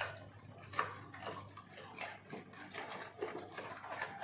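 Dog eating quickly from a hand and plastic colander, making irregular light clicks.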